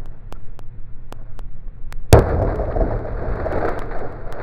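A sharp bang about two seconds in, followed by a rumbling noise that carries on; faint ticks sound over a low rumble before it.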